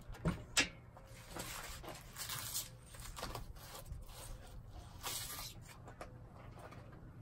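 A rubber slide-out wiper seal on an aluminum strip being pulled away from the camper frame, its butyl tape tearing loose in a series of short, irregular tearing sounds. Two sharp knocks near the start, as a cordless drill is set down on a wooden bench.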